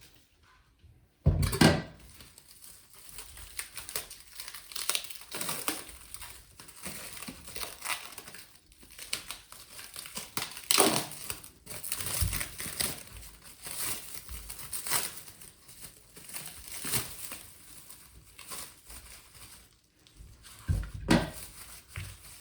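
Plastic or paper packaging crinkling and rustling in irregular bursts as it is handled and torn open, with a sharp knock about a second in and another near the end.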